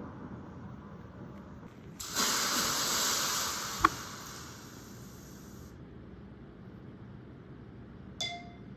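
A hissing sound effect, about three and a half seconds long, starts about two seconds in, with a sharp click just before it fades. A short beep follows near the end.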